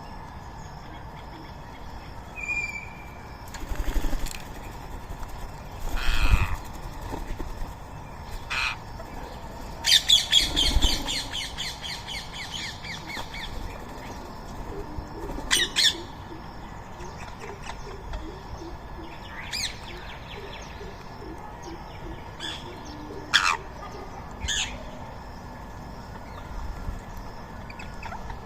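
Rose-ringed parakeets calling with short sharp screeches at intervals, and a fast run of loud chattering notes about ten seconds in. A few low thuds come with some of the calls.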